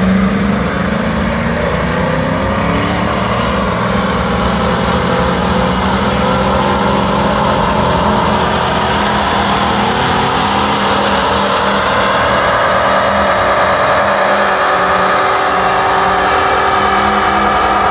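A car doing a burnout: the engine is held at high revs while the rear tyres spin and squeal against the road, pouring out smoke. The squeal grows stronger in the second half.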